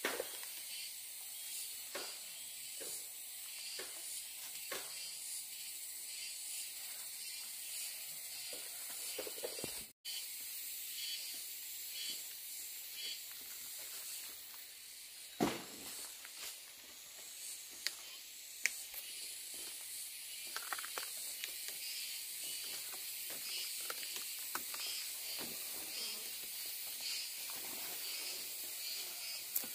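Gas cutting torch hissing steadily, with a few scattered knocks and clicks of metal, the loudest about fifteen seconds in.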